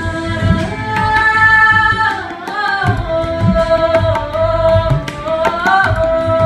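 Tabla played by hand: sharp, ringing strokes on the small treble drum and deep bass strokes on the larger bass drum (bayan) that bend in pitch. Over it runs a held melody that slides from note to note.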